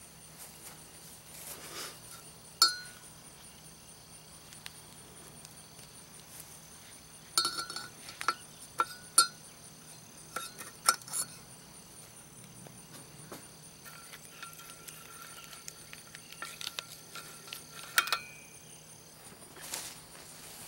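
Scattered sharp metal clinks and clicks of pliers and a wrench working the cotter pin and nut off an Evinrude 9.9 outboard's propeller shaft, most of them falling in the middle stretch. A steady high-pitched insect sound runs underneath.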